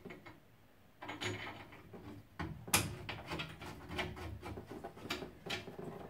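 Scattered small clicks, taps and rustling of hands handling new seals and pipe fittings inside a combi boiler's casing, starting about a second in, with one sharper click near the middle.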